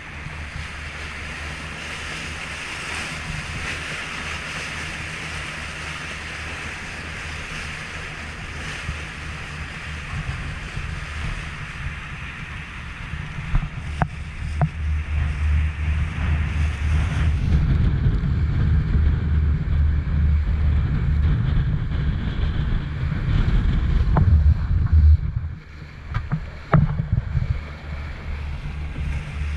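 Motorboat running fast over open sea: water rushing and splashing along the hull, with wind buffeting the microphone. It grows louder about halfway through, with a few sharp knocks in the second half.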